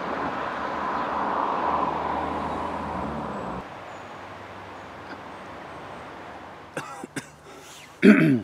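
A man gives a short, throaty cough near the end, clearing his throat after what he thinks was a swallowed fly. Before it, a steady rushing outdoor noise drops away after about three and a half seconds.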